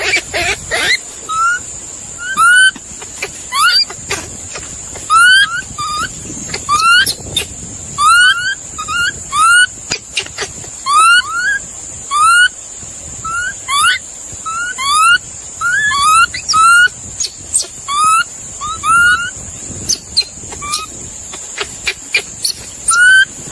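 An animal's short, squeaky calls, each rising in pitch, repeated about two a second, sometimes in quick pairs, over a steady high hiss.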